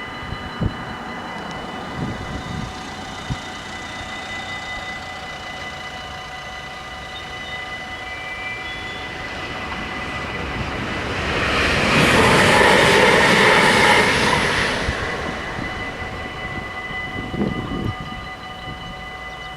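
Dutch level-crossing warning bells ringing steadily while a Sprinter New Generation electric train passes, its noise building to a peak near the middle and fading away over a few seconds. A few short low thumps come near the start and near the end.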